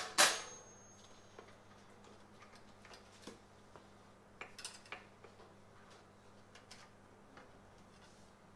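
A sharp metallic clank at the start that rings briefly, then scattered light metal clicks and taps, with a small cluster of them about four and a half seconds in: hand tools and metal engine parts being handled and set down.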